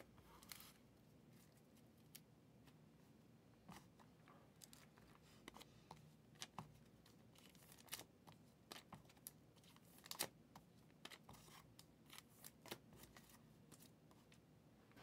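Faint, scattered clicks and rustles of trading cards and packs being handled on a table, over a low room hum.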